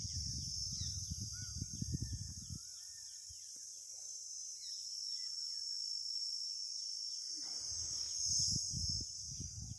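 Dawn chorus: many birds chirping and calling over a steady high-pitched insect drone. A low rumble on the microphone comes in the first couple of seconds and again near the end.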